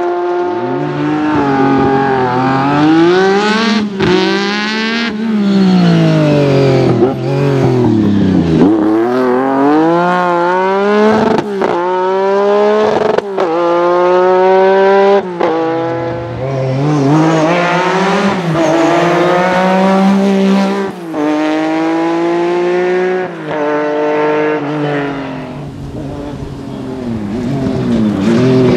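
Lancia Stratos rally car engine revving hard under full throttle, its pitch climbing and dropping back at each gear change, with some rises and falls as the car passes by. The sound is a string of short edited clips that cut suddenly from one run to the next.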